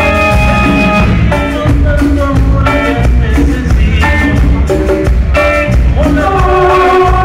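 A live band playing loudly: held keyboard chords over electric bass, drums and congas, with a few sung notes near the end.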